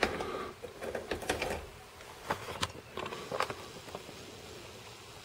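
Light plastic clicks and taps as multimeter test probes are handled and pushed into the battery box's terminal posts, a few scattered knocks over several seconds.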